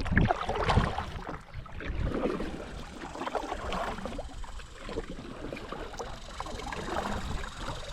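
Kayak paddle splashing in river water, swelling and fading irregularly with the strokes.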